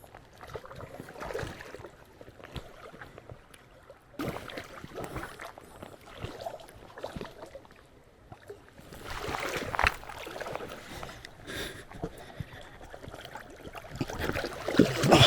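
Irregular splashing and sloshing of creek water as a hooked brown trout is played, with louder surges about two-thirds of the way through and again near the end.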